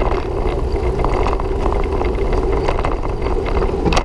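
Steady riding noise on a bicycle-mounted action camera: a constant low rumble of wind and tyres on the concrete path, with light rattles and clicks from the bike.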